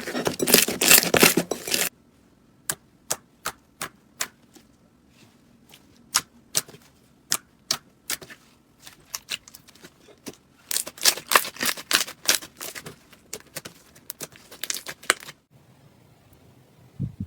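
Slime being handled, giving off crackling and popping clicks: a dense crackle at first that stops abruptly, a few seconds of scattered single pops, then dense crackling again.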